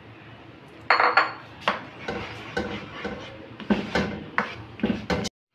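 A spatula knocking and scraping against a metal cooking pan as a thick masala paste is stirred into ghee, in a run of sharp, irregular strokes starting about a second in.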